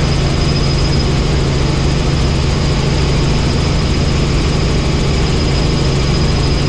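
Helicopter running steadily in flight, a loud even drone of engine and rotor with a thin high whine over it.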